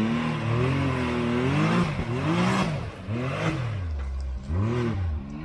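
Side-by-side UTV engine revving hard and falling back about five times in quick succession as it claws up a steep muddy hill under heavy load.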